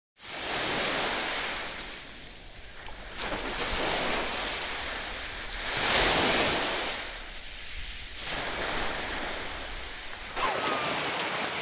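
Sea surf washing onto a shallow beach, swelling and fading in slow surges, loudest about halfway through. Faint gliding tones come in near the end.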